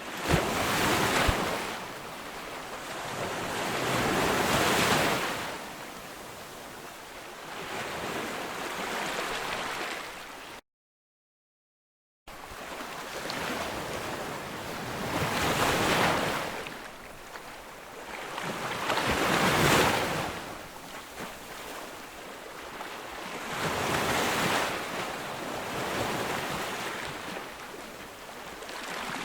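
Ocean waves breaking on a beach: surf swells and washes out again every few seconds. There is a sudden total dropout of sound for about two seconds, starting about ten seconds in.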